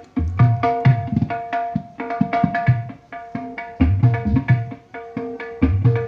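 Hand-drum music with deep bass strokes over a steady pitched accompaniment, played loud through a DIY 1200-watt mono power amplifier (SOCL 506 driver board) and a speaker cabinet. This is the amplifier on test, which its builder says plays clear, without distortion.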